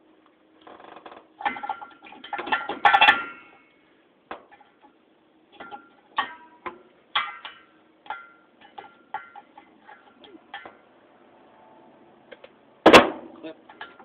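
Irregular clicks, clinks and rattles of the metal parts of a ceiling fan being worked loose by hand, with one sharp knock about 13 seconds in.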